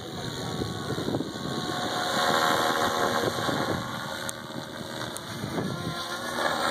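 SAB Goblin 700 electric RC helicopter in flight: a high whine from the motor and drivetrain over the whoosh of the rotor blades, swelling louder about two seconds in, easing off, then swelling again near the end as it manoeuvres.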